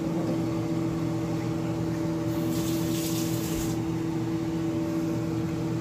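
Steady hum of a running kitchen appliance, holding a constant pitch. A brief soft hiss comes about two and a half seconds in.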